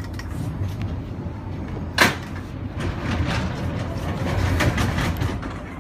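Wuppertal Schwebebahn suspension railway car with a steady low rumble, a single sharp bang about two seconds in, then a rattling clatter that grows louder before easing off near the end.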